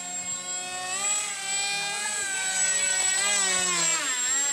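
Motor of a radio-controlled Su-37 model jet in flight, a whine whose pitch slides up and down and wavers quickly near the end, with a steady high-pitched tone underneath.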